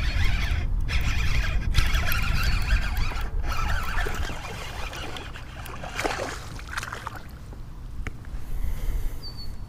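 Baitcasting reel cranking in a hooked largemouth bass, with water splashing as the fish thrashes at the surface and is lifted out of the water. A steady low rumble sits underneath. The busiest stretch is the first few seconds, and it grows quieter after that.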